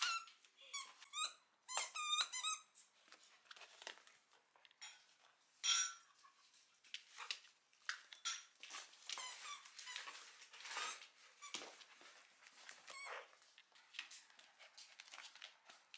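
A dog's squeaky toy squeaking in quick, short, high squeals as two dogs grab at it, most of them in the first three seconds and one more near the middle. Softer rustling and scuffling of the toy and the dogs follows.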